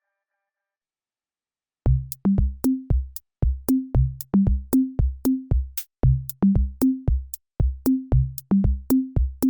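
Background music: after about two seconds of silence, an electronic drum-machine beat starts, with a kick drum, a bass line and sharp snare or hi-hat clicks, about three hits a second.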